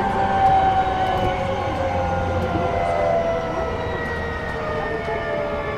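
E233-6000 series electric train heard from inside the car: the traction motors whine in several tones that slide slowly down in pitch as the train slows, over a steady rumble of wheels on rail.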